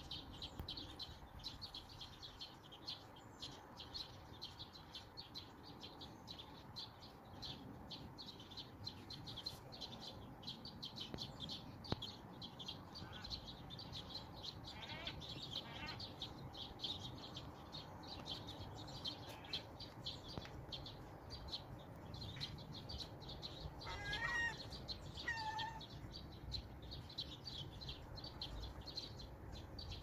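Outdoor bird sounds: a steady stream of rapid high-pitched chirps, with a few gull calls, the clearest two short ones near the end.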